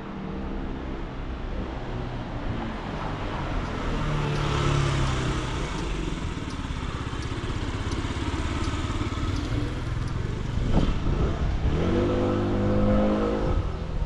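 Street traffic: a vehicle passes with a swell of engine and tyre noise midway, and near the end another engine climbs in pitch as it accelerates.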